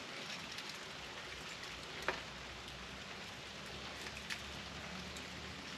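Steady rain falling, with a couple of faint clicks about two and four seconds in.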